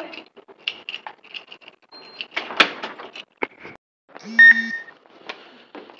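Footsteps and rustling of a body-worn camera, with a knock like a door about two and a half seconds in and a short, loud electronic buzz at about four and a half seconds.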